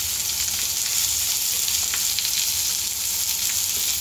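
Salmon fillets frying skin-down in hot olive oil in a frying pan: a steady sizzle with a few faint crackles.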